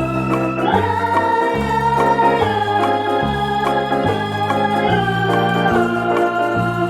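Background music: organ-like electronic keyboard playing held chords over a bass line that changes note about every second.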